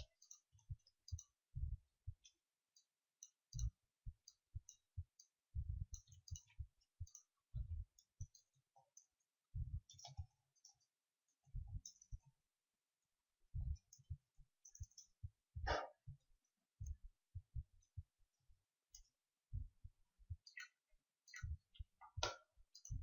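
Faint computer keyboard typing: short, irregular runs of keystrokes, each a dull thump with a light tick, broken by brief pauses and the odd mouse click.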